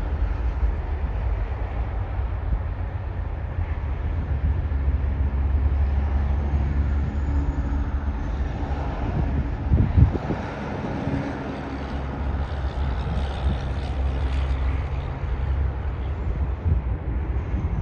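A steady low engine rumble with a faint high whine, and one short thump about ten seconds in.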